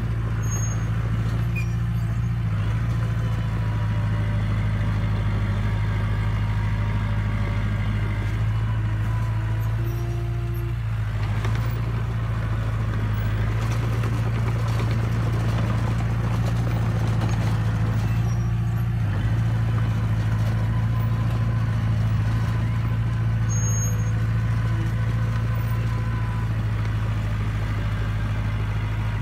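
Diesel engine of a small crawler bulldozer running steadily as it pushes a blade of loose soil, an even deep drone that holds through the whole stretch.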